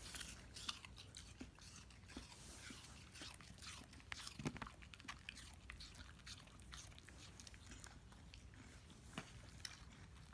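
Swedish Vallhund puppy crunching a piece of apple: faint crunchy clicks of chewing, thick in the first few seconds, then fewer and sparser.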